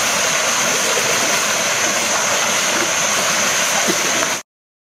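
River water rushing over rocks in a shallow cascade, a steady loud wash with a steady high hiss over it. It cuts off suddenly near the end.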